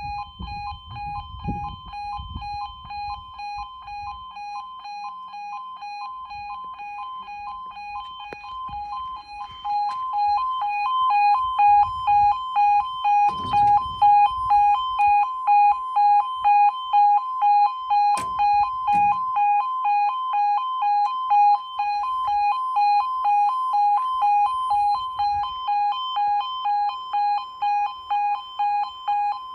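Railway level crossing warning alarm sounding as the crossing starts its warning sequence: a pulsing electronic two-tone alarm at about two pulses a second, starting suddenly and growing louder about ten seconds in.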